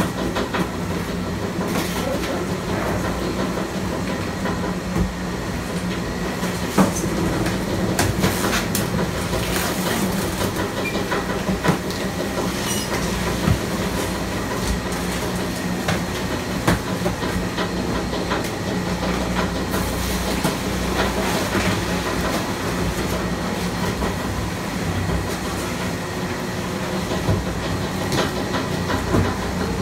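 Sani-Tech 20 HP auger compactor running, its screw auger turning through cardboard in the hopper: a steady mechanical hum and rumble with scattered sharp cracks as the cardboard is crushed.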